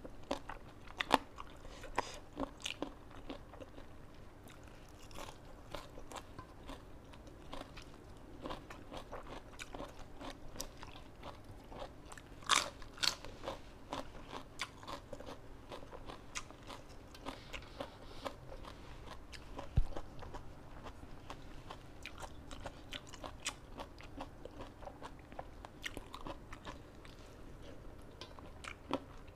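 Close-up chewing and crunching of raw vegetables and noodle salad, a steady run of small crisp crunches with a few louder ones scattered through.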